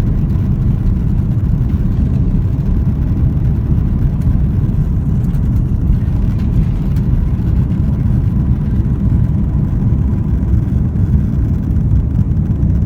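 Airliner cabin noise: a loud, steady low rumble of jet engines and airflow heard from inside the passenger cabin.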